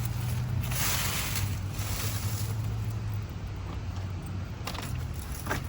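Wind rumbling on the microphone, with a brief gust of hiss about a second in and a couple of faint clicks near the end.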